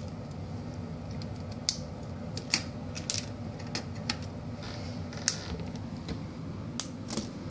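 Plastic Lego bricks and wheels clicking as they are handled and snapped together: scattered sharp clicks, roughly one a second, over a steady low background hum.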